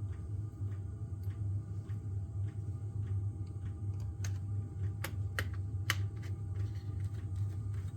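Small scattered clicks and ticks of screws and a screwdriver on a laptop's plastic case as it is screwed back together, with a few sharper clicks in the middle, over a steady low hum.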